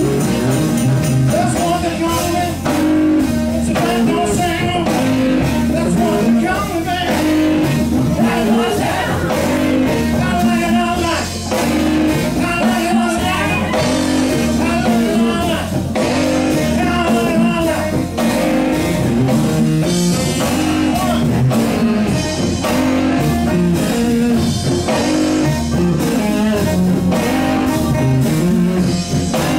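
Live blues-rock band playing a song: electric guitar, bass guitar, keyboards, drums and congas, with a wavering lead line over a steady bass groove.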